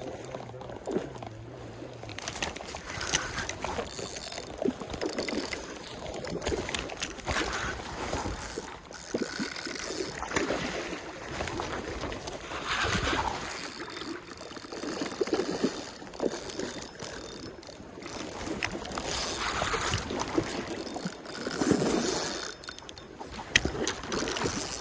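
Stream water sloshing and splashing in uneven swells, mixed with short knocks and clicks.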